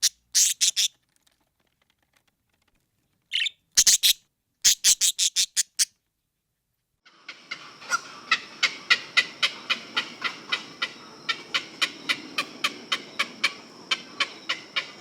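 Bird chirping: two short runs of quick, high chirps with silence between them. Then a steady series of chirps, about three or four a second, over a constant background.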